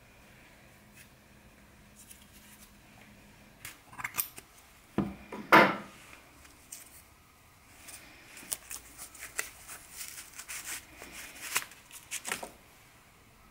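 Scissors snipping through wool yarn wound on a cardboard pompom maker: a few cuts, a louder knock of handling about halfway, then a quick run of crisp snips.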